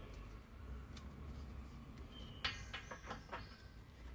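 Faint handling noise: a low steady hum, one light click about a second in, then a short run of clicks and taps around two and a half to three and a half seconds in.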